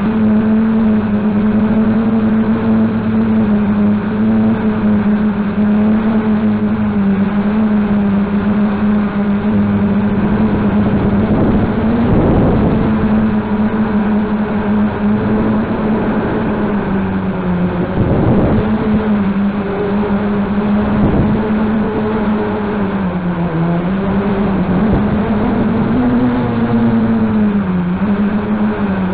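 Small Y4 multirotor's brushless motors and propellers, a steady, loud hovering drone whose pitch wavers and dips a few times as the throttle changes. It is broken twice by a brief louder rush of noise.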